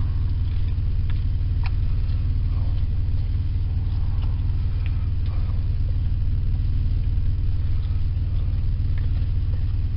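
Car engine idling steadily, a constant low rumble heard from inside the cabin, with a few faint clicks over it.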